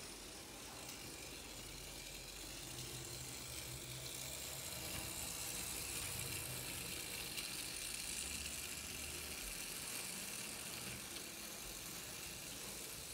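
1960s Tri-ang clockwork toy train running on its track, its wound spring motor whirring steadily. It grows a little louder for a few seconds in the middle, then eases off.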